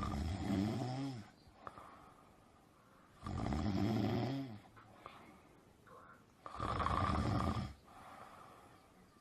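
Dog snoring: three long snores about three seconds apart, each over a second long, with quieter breathing between them.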